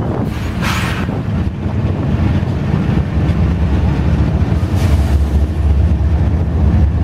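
Diesel-electric freight locomotives (CSX GE ES44AH units) passing close by, their engines a deep steady drone that grows louder over the last few seconds, with wind buffeting the microphone and a short gust of hiss about a second in.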